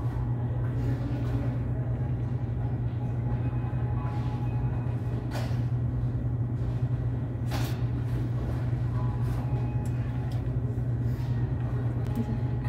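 Steady low mechanical hum of a shop's background equipment, with two brief rustles about five and a half and seven and a half seconds in.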